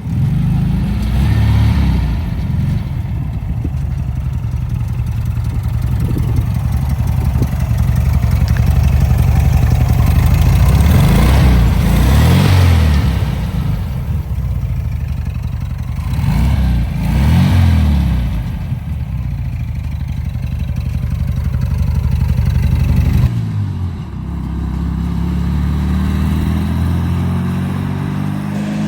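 1994 Volkswagen sand rail's 1600cc air-cooled flat-four engine running, revved up twice in the middle with the pitch rising and falling each time, then settling to a lower, quieter note near the end.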